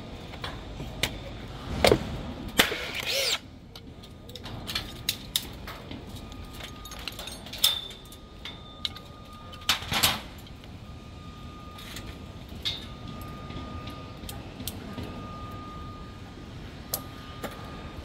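Construction site work on steel scaffolding: scattered metal clinks and knocks, with louder clattering about two to three seconds in and again about ten seconds in, over a steady background hum.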